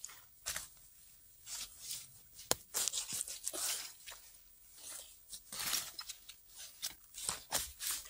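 Dry forest-floor litter (leaves, needles, twigs, moss) rustling and crunching in irregular short crackles, with brief pauses between them.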